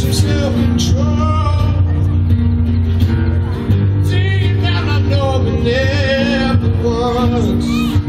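Recorded pop music playing: a singer's long, wavering notes over a steady bass and guitar accompaniment.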